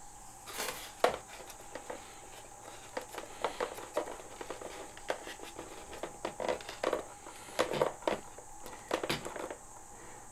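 Irregular small clicks, taps and rustles of fingers handling thin plastic zip ties and servo wires inside a foam model-plane fuselage, as the ties are fed around a flight-stabiliser gyro board.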